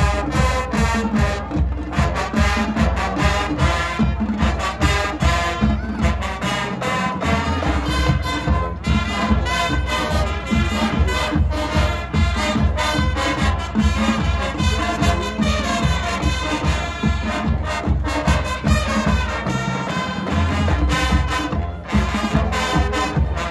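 High school marching band playing: brass, with sousaphones on the bass line, over a steady beat. The low bass drops out briefly twice, about a third of the way in and again near the end.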